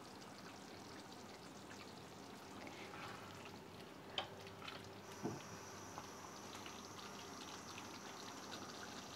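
Faint wet stirring of thick curry gravy with a wooden spatula in a kadai, with a couple of light knocks about four and five seconds in.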